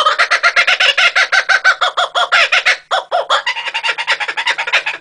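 Laughing kookaburra calling: its laughing call, a fast run of repeated chuckling notes, about ten a second, with a brief break about three seconds in.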